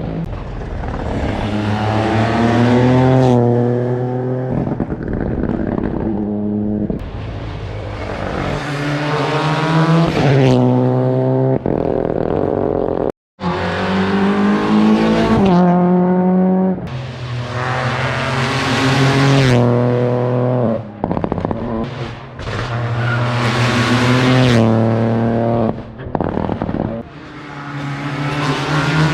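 Rally car engines at full effort on a special stage, revving high and dropping back again and again as the cars shift through the gears and brake for corners. About 13 seconds in, the sound cuts out briefly and a second car follows with the same pattern.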